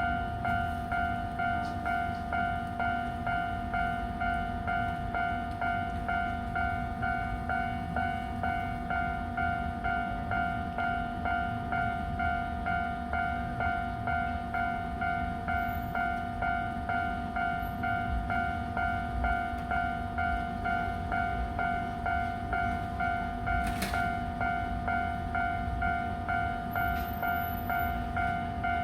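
Japanese level-crossing warning bell ringing on and on, an even, repeating electronic ding, with a low rumble underneath. The crossing is being held closed by a train stopped on it.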